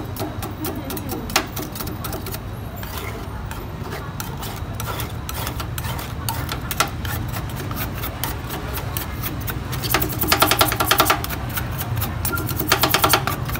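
Two metal spatulas chopping cookies into ice cream base and scraping across a frozen steel plate for Thai rolled ice cream. Scattered clacks give way to a fast run of rapid chopping taps about ten seconds in and another shortly before the end, over a steady low hum.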